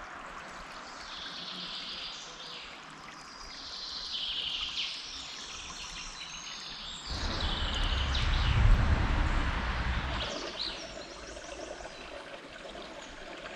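Shallow spring-fed stream trickling over stones, with songbirds calling over it through the first half. About seven seconds in, a low rumble comes up for about three seconds, then drops away.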